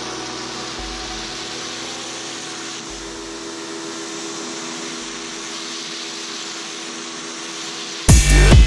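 Pressure washer running steadily, its water jet hissing onto a wet, soapy carpet. About eight seconds in, loud electronic dance music with heavy beats abruptly starts.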